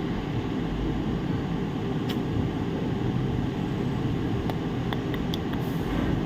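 Steady whirring of a fan or air conditioner, with a few faint light clicks in the second half.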